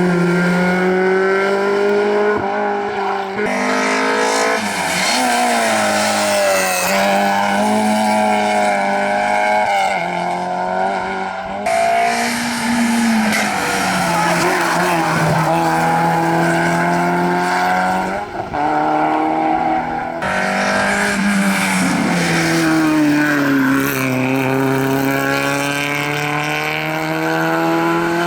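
Rally cars' engines at hard throttle on a special stage, the pitch climbing and dropping with each gear change, in several short clips cut one after another.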